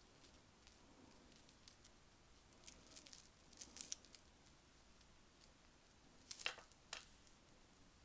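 Faint scattered clicks and light rustling of vintage costume jewelry being handled, with two sharper clicks about six and a half and seven seconds in.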